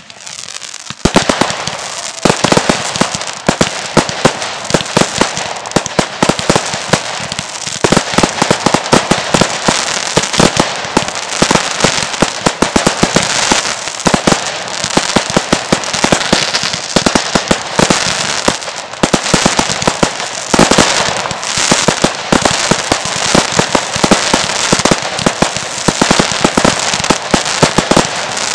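Fireworks display: dense, rapid bangs and crackling from aerial bursts, near-continuous after a short lull about a second in.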